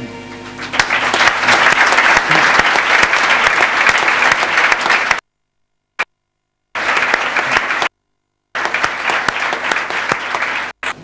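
The last held chord of a youth string ensemble of violins, quickly swallowed by a crowd clapping about a second in. The applause is dense and steady, cut off abruptly to dead silence several times by edits.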